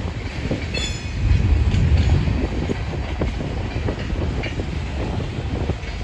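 Loaded rock train's open hopper cars rolling past: a steady low rumble with wheels clicking over rail joints. A brief high squeal comes about a second in.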